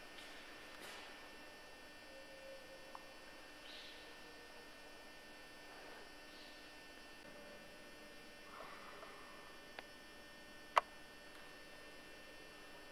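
Faint steady electrical hum, with a single sharp click about eleven seconds in.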